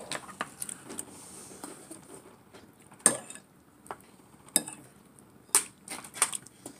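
Cutlery clinking against dishes at a meal: a handful of scattered sharp clicks, the loudest about three seconds in.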